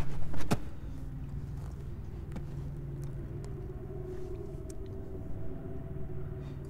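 Steady low drone of distant propeller aircraft engines, holding several steady pitches, with a few faint clicks. A brief clatter of movement fills the first half second.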